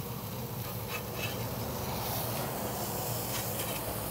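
Beef burger patties sizzling on a hot grill, a steady hiss, with a few faint clicks from buns being moved on the griddle.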